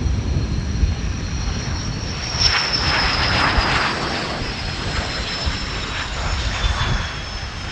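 Gloster Meteor's twin Rolls-Royce Derwent turbojets whining as the jet flies low over the runway to land. Two high whines slide slowly down in pitch over a steady low rumble, with a louder rush of jet noise about three seconds in as it passes closest.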